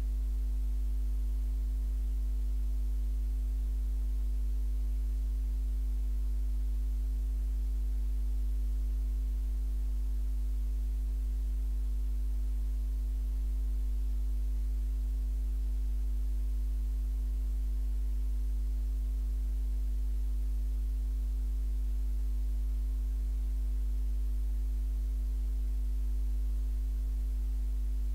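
Steady electrical hum: a strong low drone with a set of fainter, higher steady tones above it, unchanging throughout.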